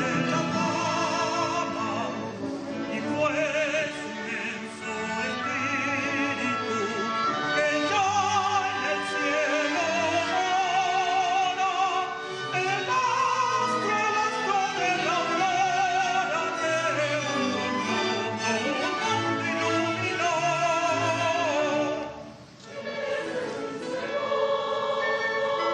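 Symphony orchestra with operatic singing, the voices held with wide vibrato and a choir joining in. The music dips briefly near the end, then choir and orchestra come back in.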